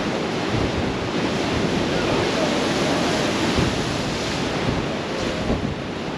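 Heavy hurricane storm surf crashing and churning against an eroded beachfront, a steady rushing roar of breaking waves with wind buffeting the microphone.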